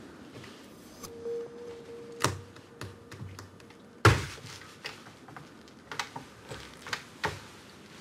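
A door lock being forced and the door opened: clicks and knocks at the lock, a short held squeak, then one loud thud about four seconds in, followed by a string of light clicks and taps.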